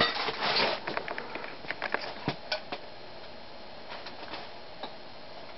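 A scatter of sharp clicks and rustles for about the first three seconds, from handling the speed control. After that, the Evergo ceiling fan's cast-iron spinner motor runs steadily with a faint hum, just turned up a notch.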